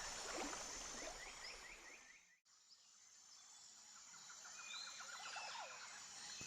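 Faint outdoor nature ambience sound effect with small birds chirping in quick runs of short notes; it fades out about two seconds in and fades back in about a second later.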